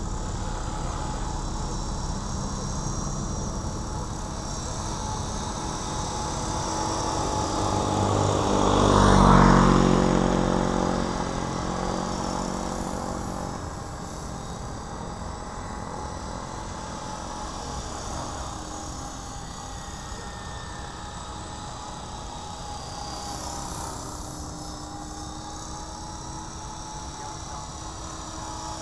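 Align T-Rex 500 electric RC helicopter flying figure-eight loops in idle-up, its rotor and motor running steadily. It passes close about nine seconds in, swelling to its loudest, then fades as it moves away.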